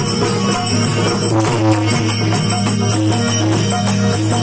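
Rajasthani folk bhajan ensemble playing an instrumental passage: a harmonium carries held notes over a steady drone, with a barrel hand drum beating time.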